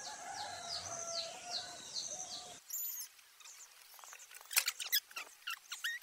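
A bird calling outdoors with a run of short, falling whistled notes, repeated about twice a second. Then, from about four and a half seconds in, a quick irregular series of sharp taps: a hammer driving wire nails into a wooden board.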